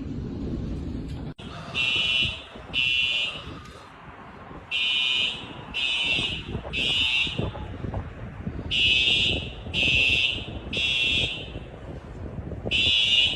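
Smoke alarm beeping in its temporal-three fire pattern: high-pitched beeps in groups of three, about a second apart, with the pattern repeating every four seconds or so, over a low rumbling storm-wind noise.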